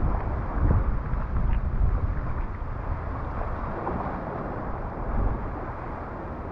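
Wind rumbling on the microphone, with water sounds from a sea kayak gliding across calm water; the rumble eases off a little in the second half.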